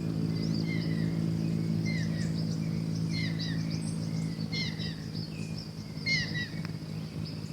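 Outdoor ambience of birds chirping in short repeated calls over a steady high insect drone, with a low steady hum underneath.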